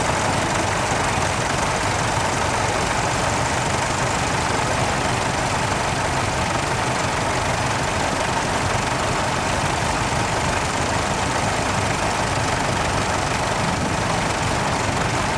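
Several tractor engines idling steadily together, an even, unbroken low running sound.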